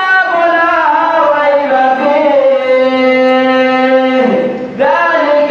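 A man singing a slow, melodic chant into a microphone. He draws out one long held note for nearly two seconds, breaks off briefly for breath a little past four seconds in, then sings on.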